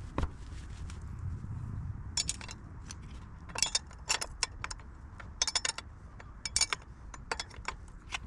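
Small metal bicycle headset parts clinking and rattling as they are handled, in several short bursts of sharp clicks from about two seconds in.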